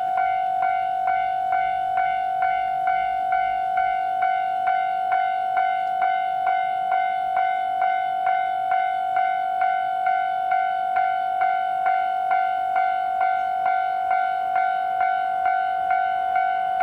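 Japanese railway level crossing alarm ringing, its electronic bell striking evenly a little over two times a second: the crossing is closed for an approaching train.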